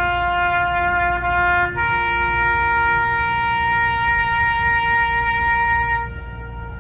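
A solo trumpet or bugle plays over the speedway's public address. It holds one long steady note, steps up to a higher note about two seconds in, holds that for about four seconds, then stops.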